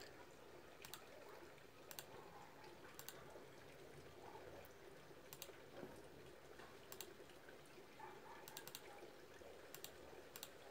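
Near silence: faint room hiss with a dozen or so faint, sharp clicks scattered at irregular intervals, some in quick pairs or runs.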